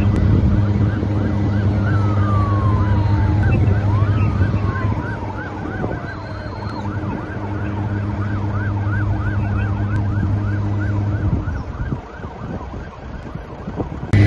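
Emergency vehicle siren yelping in a fast rise and fall, about two or three cycles a second, fading after the first half. Twice a second tone glides slowly down in pitch. Beneath it a steady low hum stops near the end.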